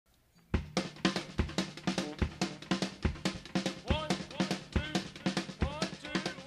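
Drum kit playing the opening beat of a song, kick and snare in a steady rhythm, starting about half a second in. A few sliding pitched notes join over the drums in the second half.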